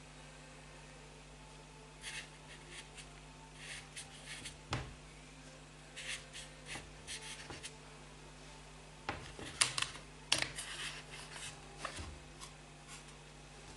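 Fingers tapping and brushing on smartphone touchscreens and handling the phones: scattered short taps and scratchy rubs, busiest about nine to eleven seconds in, over a faint steady low hum.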